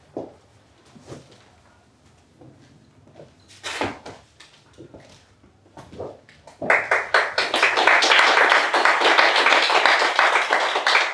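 An audience bursts into applause about six and a half seconds in and keeps clapping. Before it, only a few soft steps and knocks on the stage floor.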